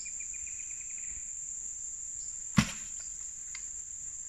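Steady, high-pitched chorus of crickets, and about two and a half seconds in a single sharp thud as a wooden pole is jabbed down into the shallow stream at the mouth of an electric eel's burrow to pin it.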